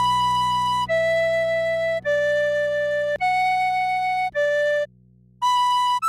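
Tin whistle playing a slow melody, one held note at a time: six clear notes, about a second each, with a short break just before the last one, over a soft, steady low accompanying chord.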